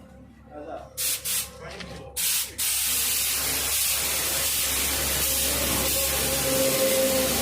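Compressed air hissing from an air tool: three short blasts, then a steady continuous hiss from about two and a half seconds in.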